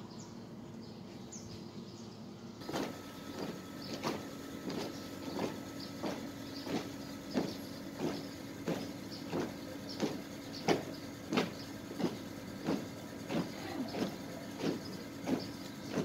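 A squad marching in step, boots striking the pavement together in regular footfalls about one and a half times a second, starting a few seconds in.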